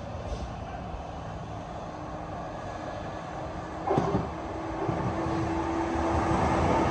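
A train approaching through a station, growing steadily louder over the last few seconds with a steady low hum, and a brief loud knock about four seconds in.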